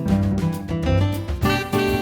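Background music: an upbeat jazz or swing track with brass and a steady beat.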